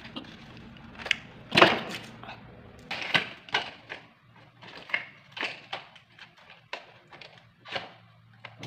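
Large plastic toy building blocks knocking and clattering against each other and the styrofoam box as a kitten paws and noses them, in irregular knocks with the loudest about one and a half seconds in.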